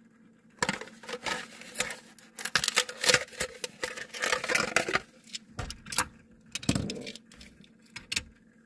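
Plastic blister packaging crackling and crinkling as it is torn open to free a Matchbox die-cast toy car. After about five seconds this gives way to a few scattered knocks and clicks as the small car is handled and set down.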